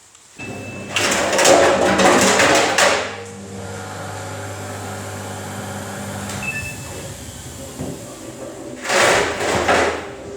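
Samsung washing machine spinning with a load of wet towels: a steady motor and drum hum, broken by two spells of loud clattering, one about a second in lasting some two seconds and another near the end.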